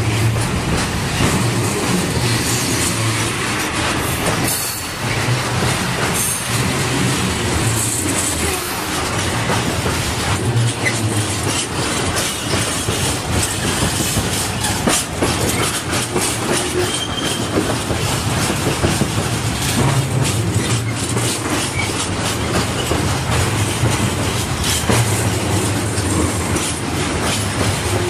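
Container freight train's flat wagons rolling past close by: a loud, steady rolling noise with the clickety-clack of the wheels over the rail joints and points.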